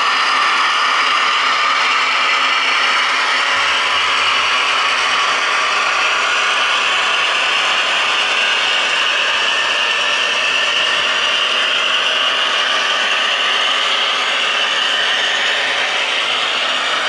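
Piko V 200 model diesel locomotive running with its train on the model railway track: a steady mechanical whirring rattle of gearing and wheels on the rails.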